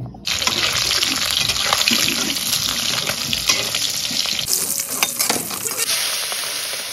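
Small fish deep-frying in hot oil in a wok: loud, steady sizzling that starts suddenly just after the beginning, with scattered clicks and scrapes of a metal spatula stirring and turning the fish.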